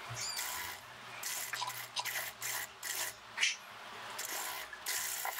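Chiffon fabric rustling as it is gathered, shifted and smoothed by hand, in a string of short irregular swishes. A faint low hum runs under it for about the first three seconds.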